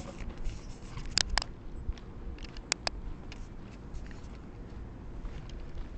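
Low steady rumble of wind and handling on a handheld camera's microphone while walking, with a few short sharp clicks, two close pairs standing out about a second in and near three seconds in.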